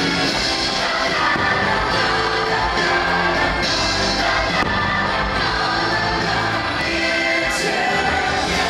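Stage show music with singing, continuous and steady in level.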